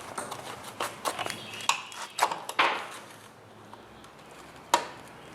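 Ratchet tightening a nut on a freshly welded stud on a steel mower deck: irregular metal clicks and clinks, some ringing briefly, then a pause and one sharp clank near the end.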